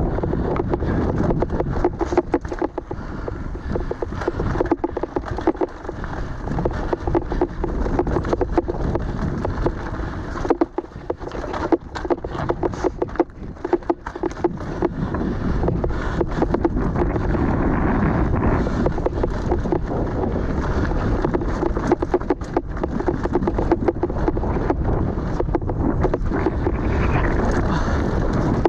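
Wind buffeting the microphone of a mountain bike's point-of-view camera, over knobby tyres rolling on a dry, stony dirt trail, with frequent clicks and rattles from the bike over the rough ground. The rush grows louder and steadier in the second half.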